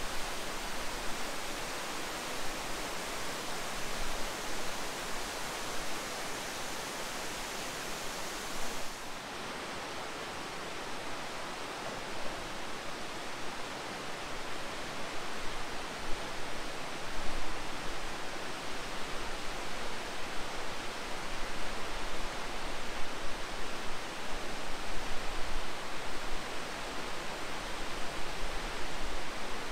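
Waterfall rushing over rock ledges: a steady, dense hiss of falling water. About nine seconds in the sound changes, with less of the highest hiss.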